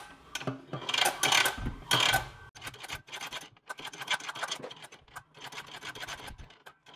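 Kevlar pressure washer hose rubbing and scraping as the spring-driven Fixfans retractable reel winds it in, loudest in the first couple of seconds, followed by rapid light clicking from the reel.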